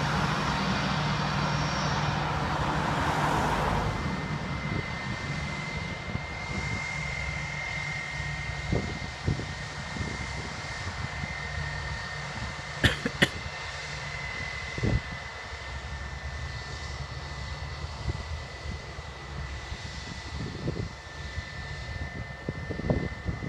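Airbus A320 jet engines at taxi power, a steady low hum with a high whine, and a louder rush of noise in the first few seconds. Two sharp clicks about halfway through.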